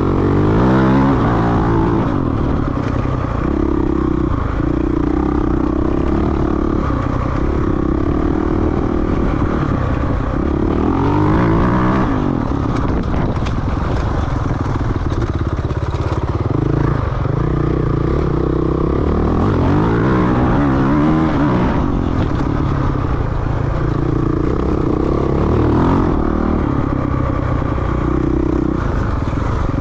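Off-road dirt bike engine under hard throttle, its pitch climbing and dropping back again and again as it revs and shifts through the gears, with the bike rattling over rough ground.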